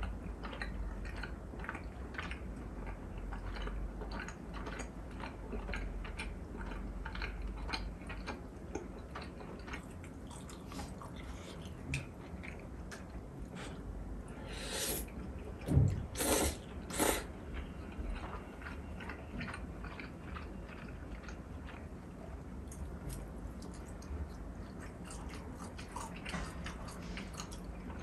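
Close-miked chewing and wet mouth sounds of a person eating, with three loud slurps of noodles a little past halfway through.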